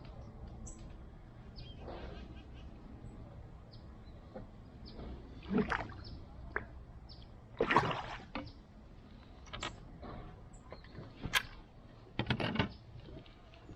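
Scattered knocks and clatters of gear handled against a plastic fishing kayak's hull, with light water sloshing between them.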